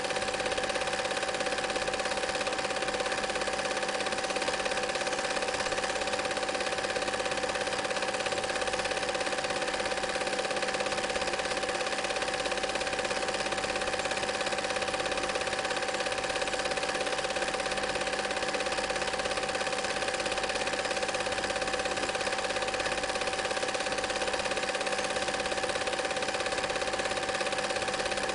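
Home-movie film projector running: a steady mechanical whirr with a constant tone, unchanging.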